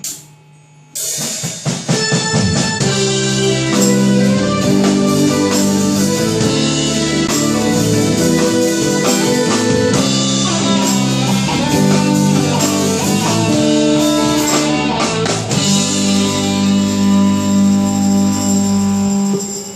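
A luk thung band playing an instrumental passage on electric guitars, bass, keyboard and drum kit, coming in after a short pause about a second in.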